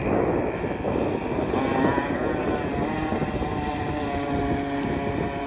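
Electric RC boat motor whining as the boat runs on the water on a 3S battery, over a hiss of water. The whine settles into a steady pitch after a slight dip about two seconds in.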